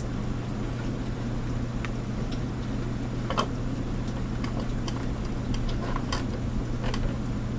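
Light clicks and taps of plastic parts being handled and fitted together, a few seconds apart, over a steady low hum.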